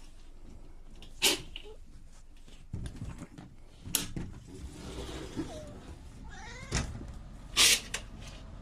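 A domestic cat gives a short, faint mew about six seconds in, among several sharp knocks and rustles, the loudest knock near the end.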